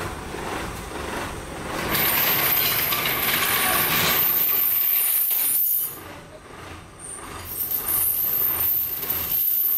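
Metal chains clinking as a chained elephant steps back down off a truck, under a loud hiss that comes in about two seconds in and cuts off suddenly near six seconds.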